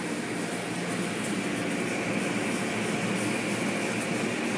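Automatic car wash heard from inside the car cabin: water spray and cloth brushes washing over the windshield and body, a steady rushing noise.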